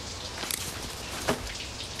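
Steady hiss and patter of falling water, with two sharp clicks: one about a quarter of the way in and a louder one just past halfway.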